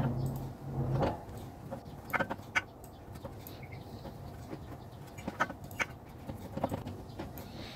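Light metal clicks and taps as a steering tie rod end is handled and threaded by hand onto the end of a long tie rod, a few scattered knocks over a quiet background.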